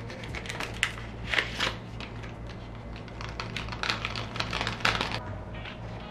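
Small clear plastic case of glitter vials being handled: a quick, irregular run of plastic clicks and rattles that stops about five seconds in.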